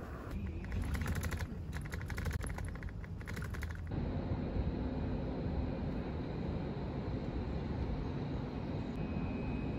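Outdoor ambience: a fast run of clicks or ticks for the first few seconds, then an abrupt change to a steady background hum with a low drone.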